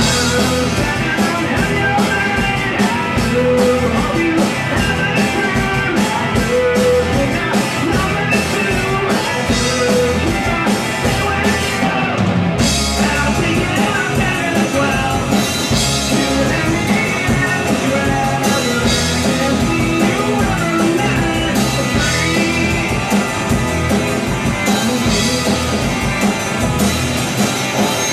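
Live rock band playing: electric guitars and a drum kit, with steady cymbal crashes. The cymbals drop out for a moment about twelve seconds in.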